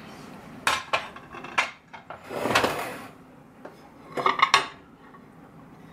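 Ceramic plates and dishes clinking and knocking together as they are set down and picked up on a tabletop, with a short scraping sound about two and a half seconds in.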